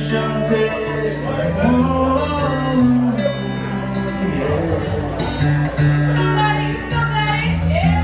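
Live acoustic performance: a man singing into a microphone over an acoustic guitar, with steady low notes that shift with the chord changes.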